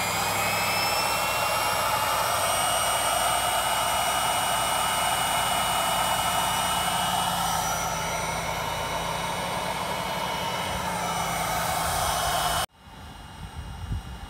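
Small electric air pump inflating a twin air mattress: its motor runs with a steady high whine over a rush of air. It stops abruptly near the end.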